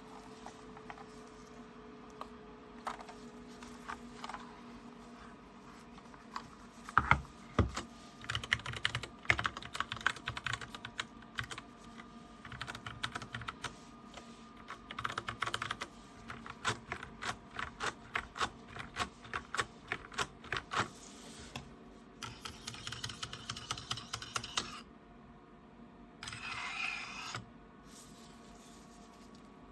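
Typing on a DREVO Seer PRO mini mechanical keyboard with Gateron Brown switches: a few scattered keystrokes, then a steady run of quick, uneven keystrokes from about seven seconds in until about twenty-two seconds in. A short hiss-like noise near the end.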